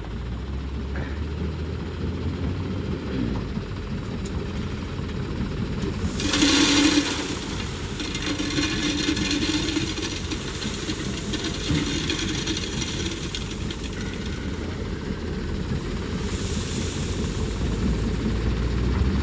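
Diesel engine of heavy machinery running steadily, with a loud rushing hiss about six seconds in and again near the end.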